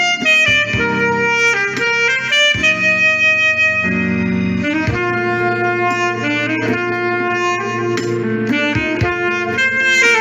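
Saxophone playing a slow smooth-jazz ballad melody of long held notes over a backing track with bass and keyboard accompaniment.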